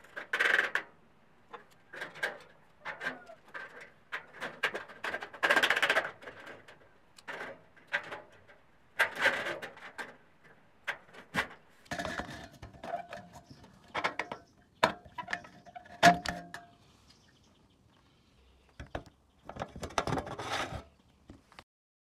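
Galvanized steel studs and channel being handled and crimped with a hand stud crimper: an irregular run of metallic clanks, clicks and scrapes, a few with a short ring.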